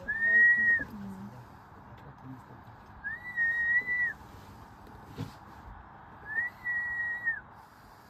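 Three long, clear whistled notes at one steady pitch, each rising in, holding and falling off, about three seconds apart.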